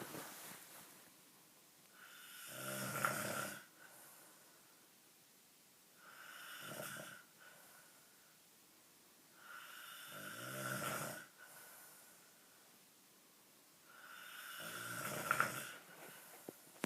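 Loud snoring: four long snores, one about every four seconds. Each builds up and then cuts off, with quiet breathing gaps between them.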